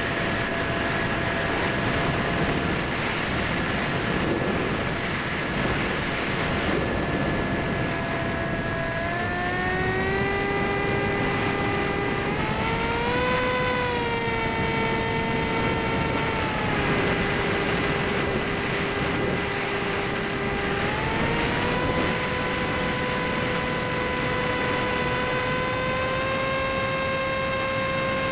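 Electric motor and pusher propeller of a Skysurfer (Bixler) foam plane, heard from the onboard camera over a rush of wind noise. The steady whine drops in pitch about a third of the way in as the throttle is eased, swells briefly, dips, then rises again about three quarters of the way through.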